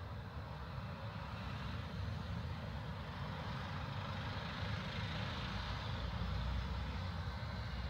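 Road traffic running steadily, a low rumble of engines and tyres, swelling a little about five to seven seconds in as a vehicle passes close.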